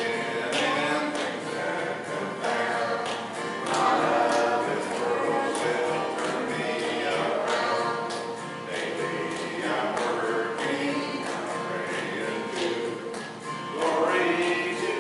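Gospel hymn with singing, accompanied by a strummed acoustic guitar and a keyboard.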